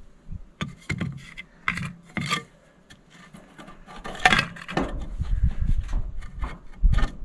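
Scattered knocks, clinks and scrapes of metal and wood as a flattop griddle on its wooden pull-out slide is handled, the loudest clatter about four seconds in.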